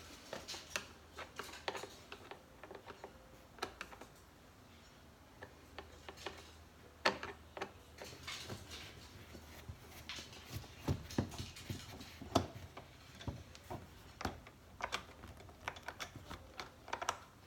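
Screwdriver backing Phillips screws out of a car's door trim panel: scattered, irregular small clicks and taps of the tool, the screws and the plastic trim.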